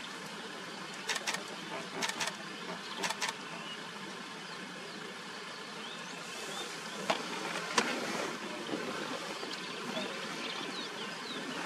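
Bush ambience: a steady insect hum with short bird chirps. Three quick pairs of sharp clicks come in the first few seconds and two single clicks a few seconds later.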